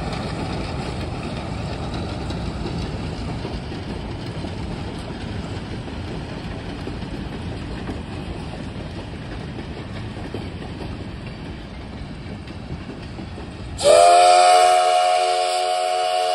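Passenger cars behind Shay No. 11, a geared steam locomotive, rolling past on the rails with a steady rumble of wheels on track. About fourteen seconds in, the Shay's steam whistle starts one long, loud blast of several tones at once, which is the loudest sound.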